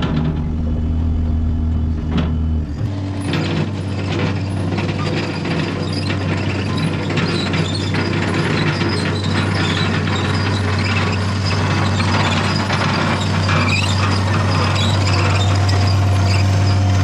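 Small engine of a walk-behind compact skid loader (Toro Dingo) running steadily under load, with metal clanking and rattling over it; the engine note shifts about three seconds in.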